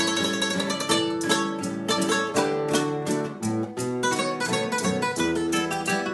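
Puerto Rican cuatro playing quick plucked notes in Latin folk music, with a bass line underneath.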